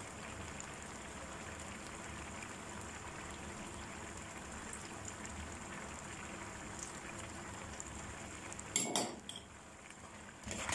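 Carrot jam boiling in an aluminium pot over a gas burner: a steady, soft bubbling hiss. A brief clatter of metal on the pot comes about nine seconds in, and another near the end.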